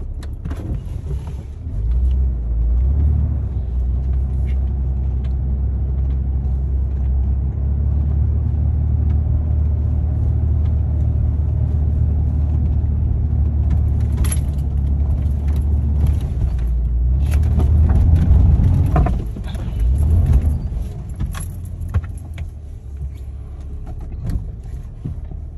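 2001 Jeep Cherokee XJ driving in four-wheel-drive low over loose gravel: a steady low engine and drivetrain rumble that swells about two seconds in. Scattered clicks and knocks from stones and the body come in the second half, where the rumble is loudest before it eases off.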